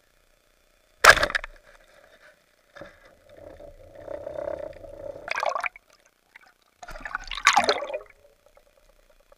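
A speargun fires underwater with a sharp crack about a second in. Rushing water and bubble noise follow as the shot fish is fought, then a louder burst of splashing and bubbles near the end as the fish is hauled in near the surface.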